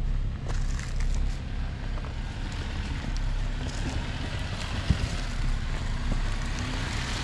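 Jeep Wrangler crawling slowly over loose rock, its engine running low and steady, with tyres crunching on stones and scattered clicks of rock. A single sharper knock comes about five seconds in.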